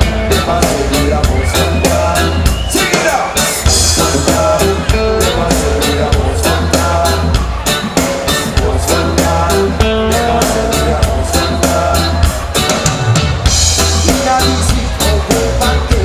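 Live reggae band playing a song: drums, electric guitars and keyboards over a deep, steady bass line, with the drum and guitar strokes falling in a regular quick beat.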